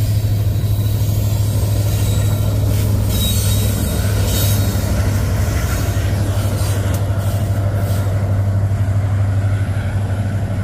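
Empty coal cars of a freight train rolling past on the rails: a steady loud rumble of steel wheels on track, with a few sharp clicks partway through.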